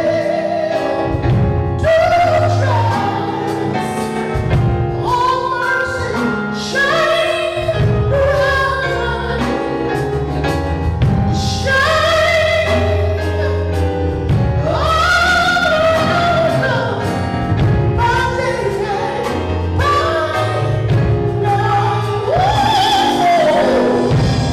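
A woman singing a gospel worship song into a microphone, with long notes bending up and down, backed by a live band with keyboard and conga drums.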